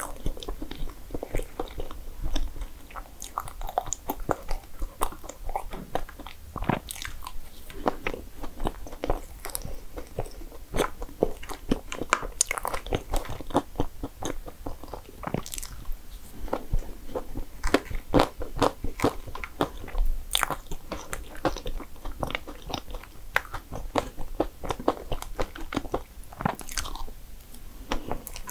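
Close-miked eating sounds: a person biting and chewing desserts, heard as a dense, irregular run of sharp clicks and mouth smacks.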